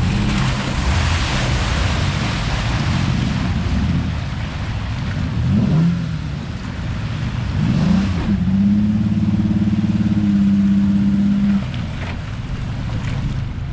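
Off-road 4x4's engine revving hard under load, rising in pitch twice and holding high revs for about three seconds before dropping back, with a rushing noise over the first few seconds.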